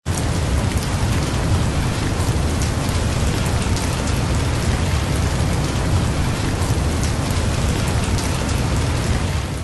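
Steady heavy rain, a dense hiss with many separate drops ticking through it.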